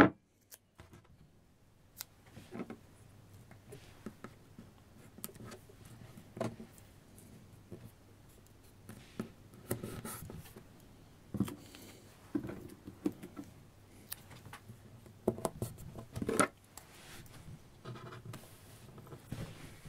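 Sheets of paper being handled and pressed flat by hand while an extra sheet is taped on: irregular rustles, scrapes and light taps, after a near-silent second at the start.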